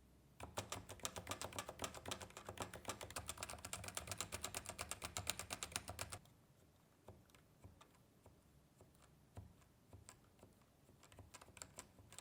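Cooler Master Novatouch TKL keys with hybrid capacitive (Topre-type) linear switches being pressed and bottomed out, some fitted with O-rings meant to muffle the impact. There is a fast run of about five or six key strikes a second for about six seconds, then fainter single presses roughly two a second.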